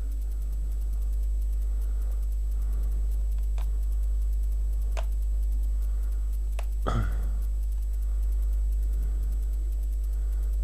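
Light clicks and one sharper knock about seven seconds in, as thin wooden moulding strips are pressed into the frames of wall panelling by hand. Under them is a steady low hum.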